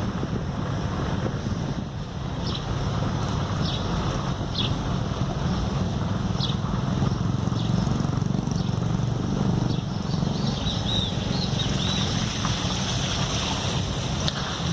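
Wind buffeting the microphone, a steady low rumble throughout, with a few short high chirps now and then.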